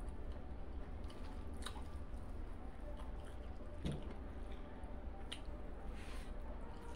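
Close-up eating sounds: wet chewing and fingers squishing rice and curry together on a steel plate, with a few sharp clicks, over a steady low hum.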